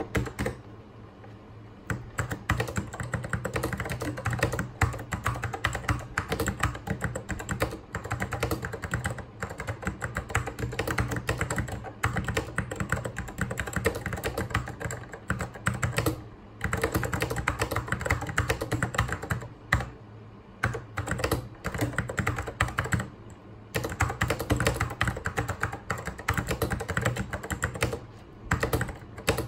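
Fast, continuous typing on a vintage Apple mechanical keyboard: a dense stream of key clacks, broken by short pauses every few seconds.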